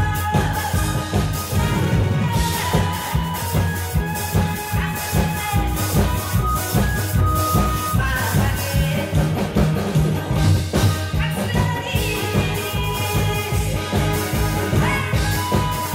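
A woman singing into a microphone over loud amplified backing music with a steady beat.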